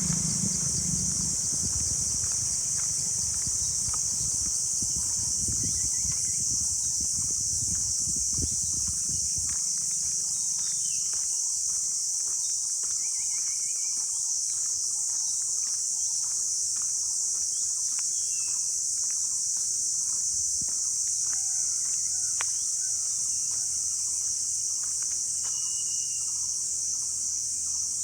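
A steady, high-pitched insect chorus, unbroken throughout, with scattered faint clicks and short chirps. A low rumble fades out about ten seconds in.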